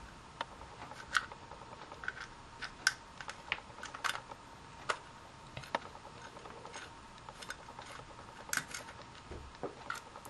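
Small screwdriver unscrewing the back screws of a plastic walkie-talkie case: irregular sharp clicks and ticks of the driver tip, screws and plastic housing, a few a second.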